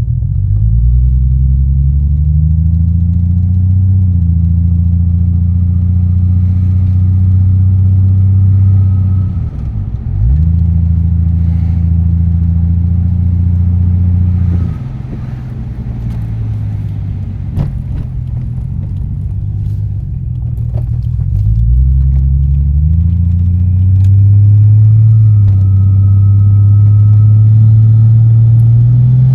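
Toyota Supra turbo straight-six running through an HKS straight-through exhaust on the road: it pulls up through the revs, breaks briefly for a gear change about ten seconds in, drops back and quietens from about fifteen seconds, then climbs again from about twenty-one seconds and holds. The engine has a cylinder misfire that the owner suspects is a blocked injector.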